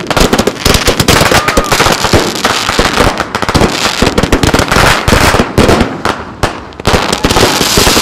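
Consumer firework cakes firing dense, rapid volleys of bangs and crackles, with a short whistle about a second and a half in.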